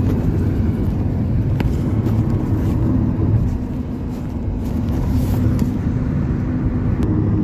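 Cabin noise of a Maruti Suzuki Ertiga driving at speed: steady engine and road noise, with a low steady hum that comes in about two and a half seconds in.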